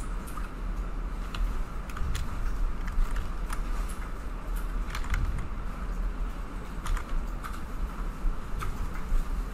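Scattered, irregular clicks of computer keyboard keys and a mouse as shortcuts and clicks are entered, over a steady low hum.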